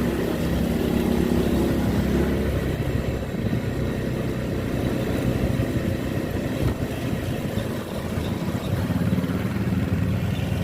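Road traffic: a vehicle engine runs close by for the first couple of seconds, then gives way to a steady rumble of passing motor vehicles.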